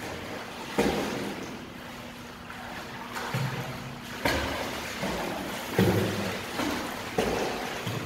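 A child swimming in a pool, her kicking feet and arm strokes splashing the water in repeated uneven surges about once a second.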